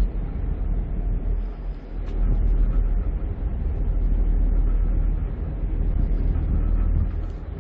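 Low, steady rumble on the open deck of a harbour ferry under way, from its engines and the passing air. It grows louder about two seconds in and eases a little near the end.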